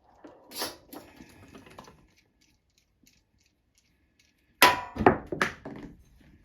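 Clicks and clatter of small hard parts and tools being handled and set down on a work surface. A few seconds of near quiet follow, then a cluster of sharp knocks about four and a half seconds in.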